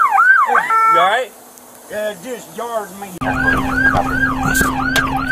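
Police siren sweeping down rapidly, about three times a second; it cuts off about a second in. Near three seconds it comes back on, now with a steady low hum and engine rumble under it from inside the patrol car.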